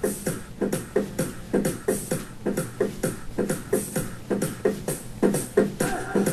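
Dance music opening on a quick, even percussion beat of about four hits a second, with little melody. A faint held tone comes in near the end.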